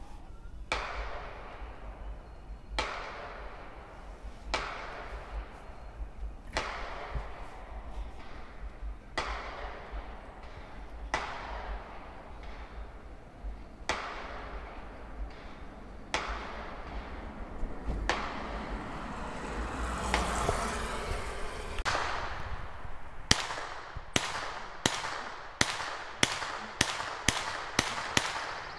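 Distant gunshots from a shooting range, each with a long echoing tail. Single shots come about every two seconds, then a quicker run of about two shots a second near the end.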